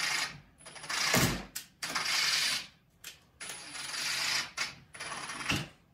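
Ridgid cordless driver driving a screw into the wooden jig in three or four bursts of about a second each, with short pauses and a few clicks between them.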